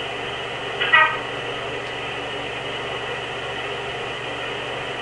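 One short high-pitched sleep vocalization about a second in, a brief squeaky call, over a steady background hum and hiss.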